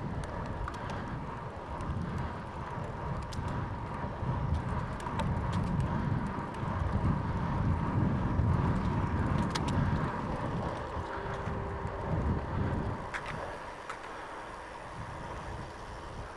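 Gusty wind buffeting the microphone of a camera on a moving bicycle, a low rumble that swells and fades, loudest around the middle, with a few faint clicks.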